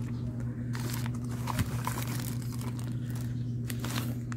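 Plastic anti-static packaging crinkling a few times as a single-board computer is handled on it, over a steady low electrical hum.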